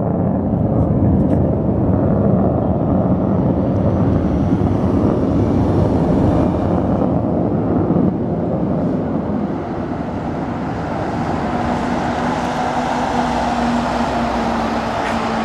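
Airplane engine noise from an air-show aircraft flying overhead: a loud, steady rumble that eases a little about eight seconds in, with a steady low hum coming in later.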